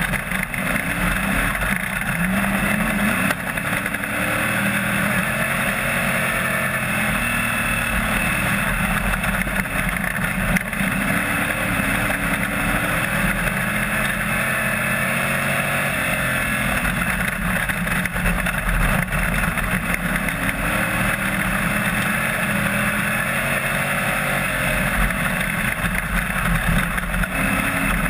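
AMCA speedway race car's engine, recorded onboard in the cockpit, running hard throughout, its pitch rising and falling again and again as the car laps the dirt oval.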